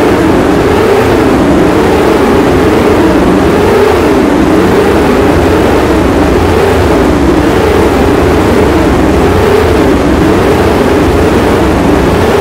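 Steady, loud, engine-like drone: a low rumble under a band of tones that sweep up and down in pitch roughly once a second.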